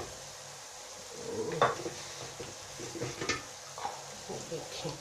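Sliced onions, fried golden, sizzling faintly in oil in an aluminium kadhai, with several short scrapes and knocks of utensils against the pan, the loudest about a second and a half in.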